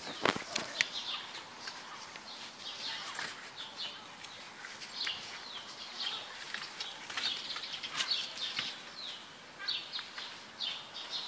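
Beagle puppies wrestling on dry grass and bare dirt: soft rustling and scuffling with scattered small clicks.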